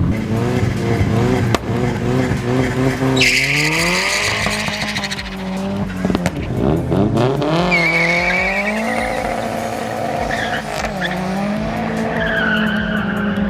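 A street car launching on a drag strip: the engine runs at steady revs, then about three seconds in tyre squeal breaks out as it pulls away. The engine note climbs and drops back at each gearshift, with more short tyre squeals later.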